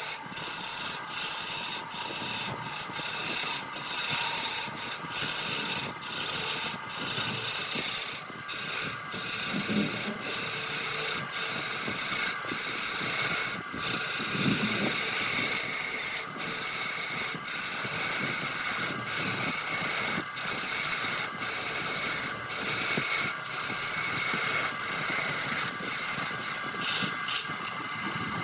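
Wood lathe running with a steady whine while a tool rasps against a spinning redwood workpiece. The scraping breaks off briefly many times.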